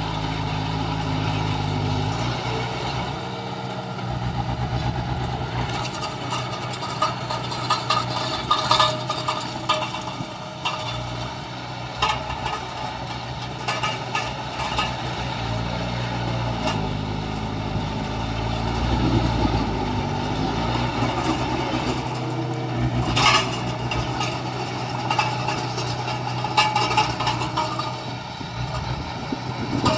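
Heavy diesel engines of construction machinery running steadily, with the engine note shifting a couple of times and scattered knocks.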